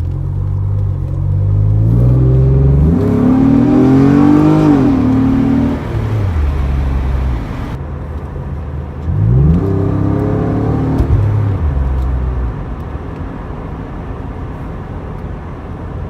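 1992 Acura NSX's V6 breathing through a Pride V2 aftermarket exhaust, accelerating hard: the engine note climbs through the revs for a few seconds, drops, then climbs steeply again about nine seconds in before easing back off.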